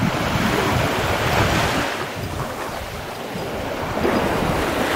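Wind buffeting the microphone over the wash of surf on a pebble beach. The hiss dips about halfway through and swells again near the end.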